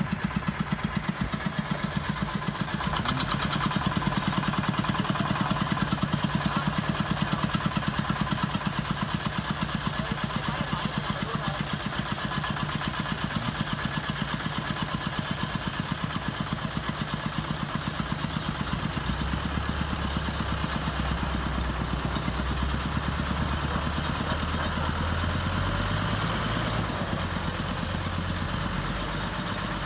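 Modified farm tractor's diesel engine chugging steadily under load as it tows a stuck dump truck out of soft earth; a deeper engine drone joins about two-thirds of the way in as the truck starts to move.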